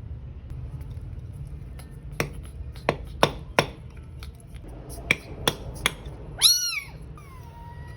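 A cat meowing: one loud meow about six and a half seconds in, followed at once by a longer, falling meow. Before that come seven sharp knocks, and a steady low hum runs underneath.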